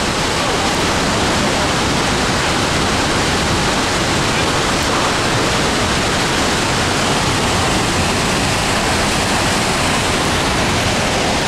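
A tall waterfall's water falling and rushing, heard from close by in its spray: a loud, steady, unbroken noise.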